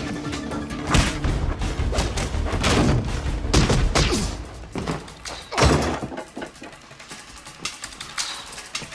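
Fight sound effects: a rapid run of blows, thuds and bodies hitting furniture and the floor over a tense music score, thinning to a few lighter knocks after about six seconds.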